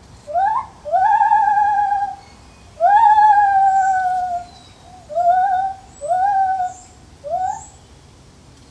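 Lar gibbon calling: six loud pitched hoots, each sweeping quickly up and then held or sliding slowly down. The second and third are held for over a second, and the last three are shorter.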